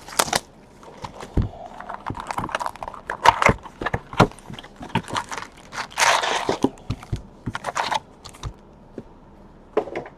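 Crinkling and crackling of plastic wrap on sealed trading-card boxes, mixed with short taps and knocks as the cardboard boxes are handled. About six seconds in comes a longer tearing rush of wrap.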